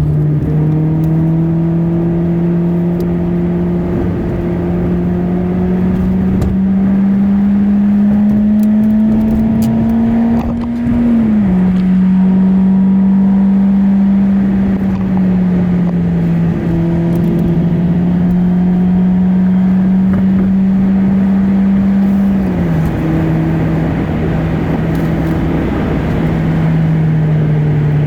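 Audi A4 B6's turbocharged 1.8-litre four-cylinder engine heard from inside the cabin while driving. Its steady note rises slowly as the car accelerates, then drops sharply at gear changes of the manual gearbox, about eleven seconds in and again near twenty-three seconds, over a steady road rumble.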